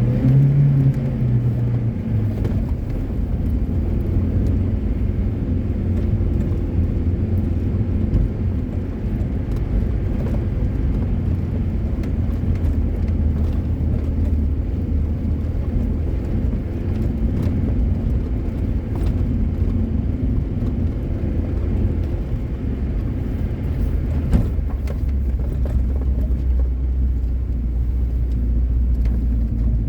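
Car engine running steadily at low revs with tyre and body rumble while driving slowly over a snow-drifted mountain track, with a few knocks from the bumpy ground.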